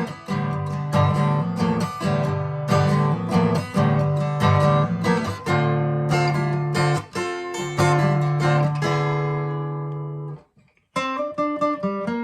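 Acoustic guitar strummed in a steady rhythm with no singing. A chord is left to ring and fade, the sound stops briefly about ten and a half seconds in, then strumming picks up again.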